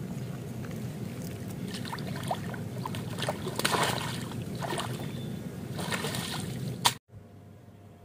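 Water sloshing and splashing in short bursts as a mesh keep net is worked in the shallows, over a low steady wind rumble on the microphone. The sound cuts off about seven seconds in, leaving only faint wind.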